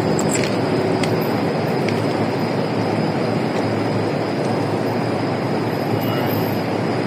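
Train running on rails: a steady, loud rumble with a few light clicks in the first couple of seconds.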